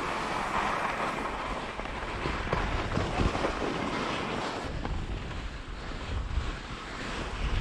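Wind buffeting the microphone, with the steady hiss of skis sliding over snow.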